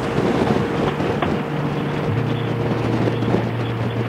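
Harley-Davidson Fat Boy's V-twin engine running at highway speed, with wind rushing over the handlebar-mounted microphone; the engine note steps down about two seconds in.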